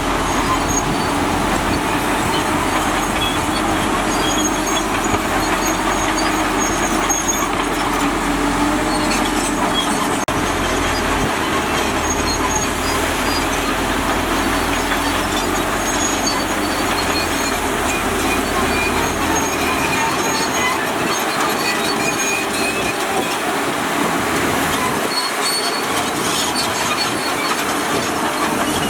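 Bulldozer working, its diesel engine running with the steady, dense grinding noise of its steel tracks.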